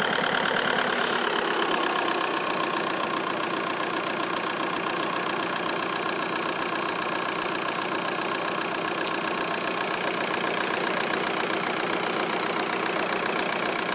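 Car engine idling with a steady, rapid pulsing clatter, easing down slightly about a second or two in and then holding steady; it is the odd noise the owner cannot place.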